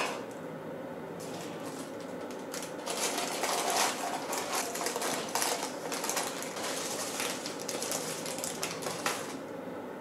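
Baking paper crinkling and rustling as hands lift and shift baked cake layers onto a wire cooling rack: a run of quick crackles from about a second in until near the end.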